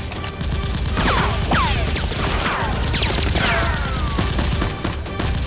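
Rapid automatic gunfire sound effects: a fast rattle of shots mixed with several sharp whistles falling in pitch.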